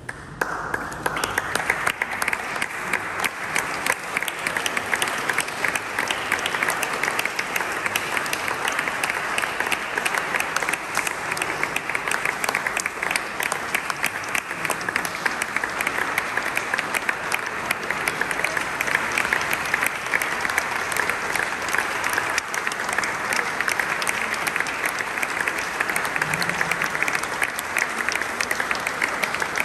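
Audience applauding, a dense, even clapping that starts abruptly and keeps up without a break.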